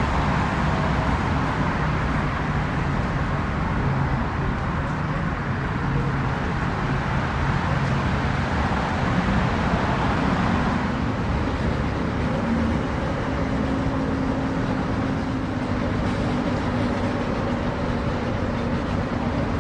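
Boat engines running steadily at low speed, with a low hum that shifts to a higher steady tone about halfway through.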